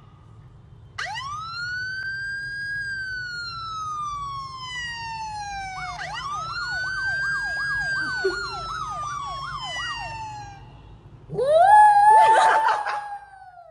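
A siren sound played from a phone wails up and slowly down twice, with a fast warbling tone over the second wail. About eleven seconds in, a small white poodle joins in with a loud, wavering howl, the loudest sound here.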